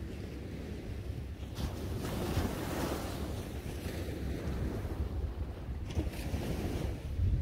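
Small waves breaking and washing up a sandy beach, with wind rumbling on the microphone. The wash swells up about a second and a half in, and again near the end.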